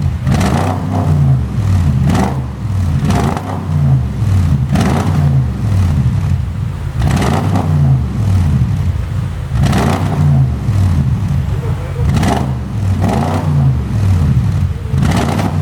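Audi S7's 4.0 TFSI twin-turbo V8 revved over and over, its pitch falling away after each blip while the exhaust pops and crackles on the overrun, the effect of a pop-and-bang tune.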